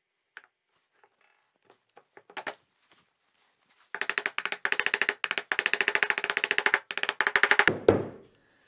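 A mallet knocking a glued wooden rail down into its joint on a workbench frame: a few light wood knocks as the piece is seated, then from about four seconds in a fast run of taps, several a second, ending in one heavier blow as the joint goes home in a snug fit.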